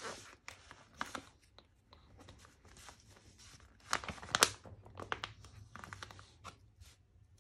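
Stickers being peeled off a paper sticker sheet, with the sheet crinkling as it is handled; a series of short rasping peels, the loudest about four seconds in.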